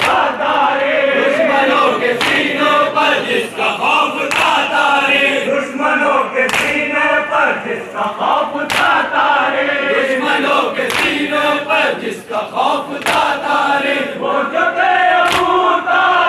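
A crowd of men chanting a nauha, a Muharram mourning lament, in unison, with sharp chest-beating slaps of matam landing together about every two seconds.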